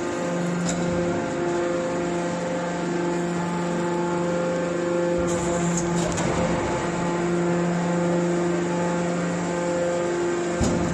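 Hydraulic metal baler running: a steady hum from its electric motor and hydraulic pump, with a few brief clicks and knocks.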